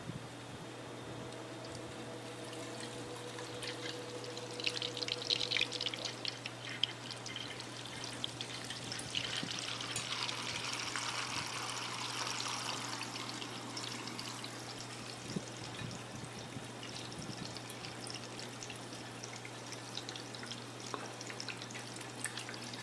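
Coolant pouring and trickling out of a cracked-open fitting on a custom PC water-cooling loop, pushed out by the loop's running pump, with a steady low hum underneath. The flow swells twice, once a few seconds in and again around the middle.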